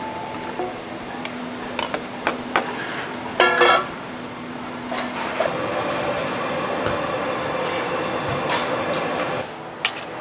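Metal ladles clinking and knocking against a large wok of casserole broth, with one ringing metallic clang about three and a half seconds in. Then a steady hiss for several seconds, and a last knock near the end.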